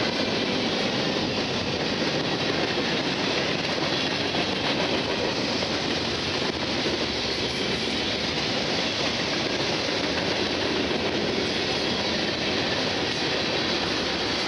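Freight train of tank cars, covered hoppers and boxcars rolling past at track speed: a steady, unbroken noise of steel wheels running on the rails.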